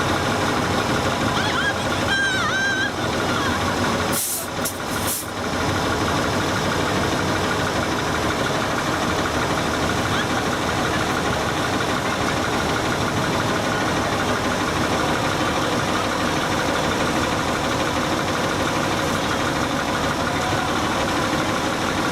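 Fire engine's diesel engine running steadily at idle, with a brief high hiss about four seconds in.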